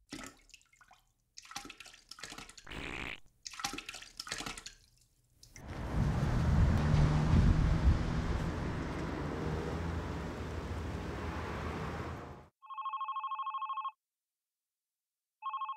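Scattered short noises, then several seconds of loud steady rushing noise that stops abruptly, then an office desk telephone ringing with a fast warbling electronic ring: one ring of about a second and the start of a second ring near the end.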